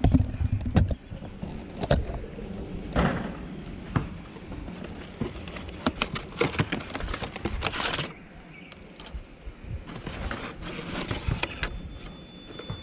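Cardboard box being opened and handled: irregular crinkling of the flaps and packaging, with small knocks as the white plastic in-line blower is lifted out. The handling is busiest a little past the middle.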